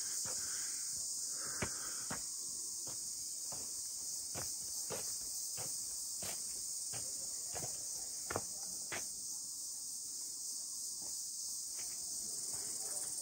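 A steady, high-pitched chorus of forest insects, with footsteps at a walking pace across an earth floor.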